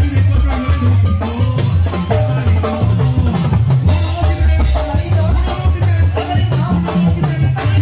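Live tamborazo band playing a cumbia: drum kit and snare keeping a steady beat under a stepping bass line and saxophone.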